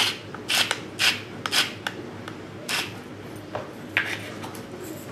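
Salt being ground over food with a hand salt mill: a string of short gritty rasps, one per twist, irregularly spaced and thinning out after about three seconds.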